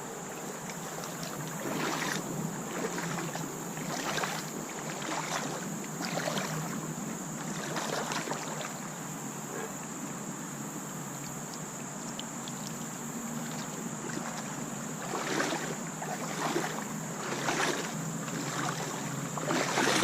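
Boots wading through shallow creek water, splashing with irregular steps about every second. There is a quieter, sparser stretch in the middle before the splashing picks up again.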